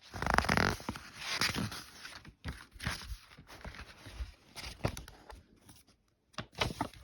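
Paper rustling as a book's page is turned: a loud burst of rustling in the first second, then scattered soft clicks and rustles of handling, with a few sharp clicks near the end.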